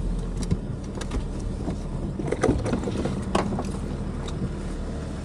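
An off-road 4x4's engine idling, heard from inside the cabin as a steady low hum, with scattered light clicks and knocks.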